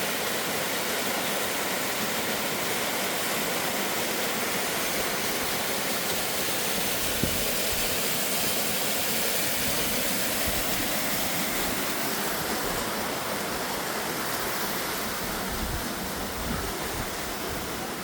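Waterfall rushing steadily, a constant roar of falling water, with a few low thumps of wind on the microphone.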